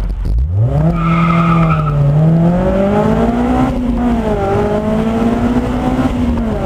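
Honda S2000's four-cylinder engine through an HKS exhaust with a test pipe, launching hard: the revs jump up sharply with a brief tyre squeal, then climb, break for a gear change a few seconds in, and climb again before easing off near the end.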